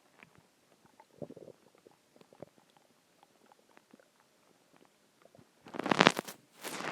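Human stomach growling and gurgling while digesting a large meal: faint clicks and small gurgles, a short gurgle about a second in, then a loud, drawn-out growl near the end.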